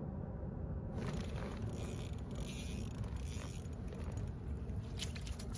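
Small ultralight spinning reel being cranked, a ratcheting, mechanical whirr, as a small panfish is reeled up through the ice hole, over a steady low rumble. Several sharp clicks come near the end.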